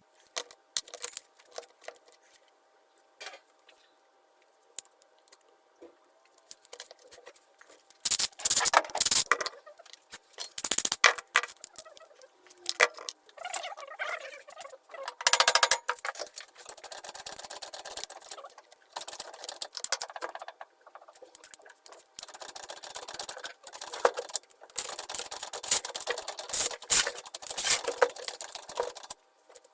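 Irregular clicks, scrapes and rattles of a cordless drill's housing and parts being handled and worked on by hand during a motor replacement. The first few seconds are mostly quiet apart from odd clicks, and the handling gets busy later.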